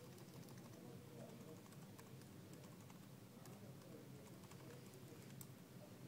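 Near silence: quiet room tone with faint, scattered clicks of computer keyboard keys.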